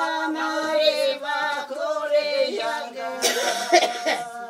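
Women's voices singing a folk song together without instruments, holding long wavering notes. About three seconds in, a brief loud noisy sound cuts across the singing.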